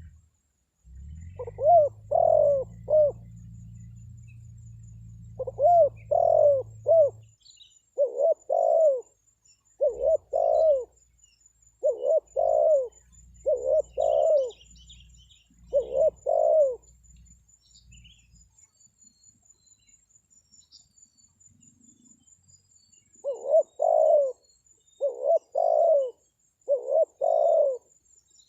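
Spotted dove cooing in repeated phrases of two or three rounded notes. There is a pause of several seconds in the middle, then the calling resumes near the end.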